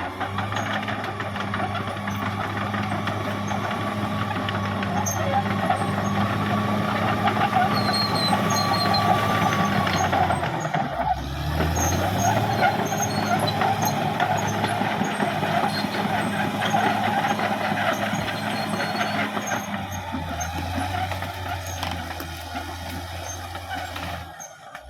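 Caterpillar D6R XL bulldozer working: its diesel engine runs steadily under load with a dense clatter over it. About ten seconds in the engine note dips briefly and climbs back up.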